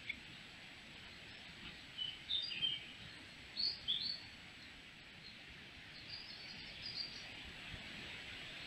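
Wild birds chirping in woodland: short high calls in a few clusters, about two, four and six to seven seconds in, over a steady hiss.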